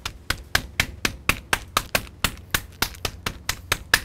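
Smooth face of a meat mallet pounding a chicken breast flat inside a zip-top plastic bag, about four even blows a second.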